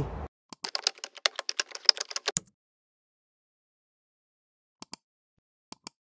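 Computer keyboard typing: a quick run of keystrokes lasting about two seconds, followed after a silence by a few single clicks near the end.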